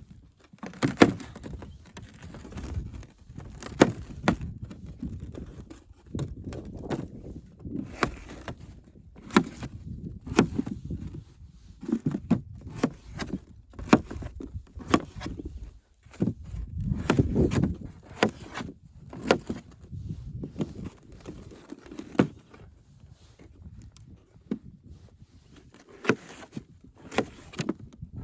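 Irregular knocks, thuds and scrapes, a few a second at times with pauses between, over dull low rumbling handling noise that swells about two-thirds of the way through.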